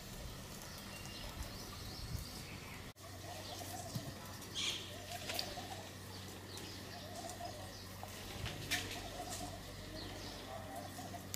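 Faint outdoor bird calls: a repeated wavering call and short high chirps over a low steady hum, with a few light ticks. The sound cuts out for a moment about three seconds in.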